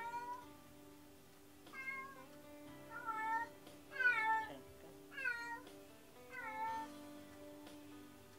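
A cat meowing over and over, six meows about a second apart, each falling in pitch, the loudest near the middle: the lonely crying of a cat left alone at home.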